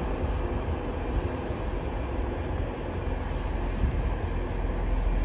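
Train running at a station platform: a steady low rumble with a faint hum, with no single event standing out.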